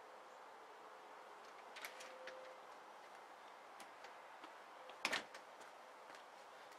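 A house's back door being opened: a few light clicks of the latch and handle, then a sharper knock about five seconds in, over a faint steady outdoor hiss.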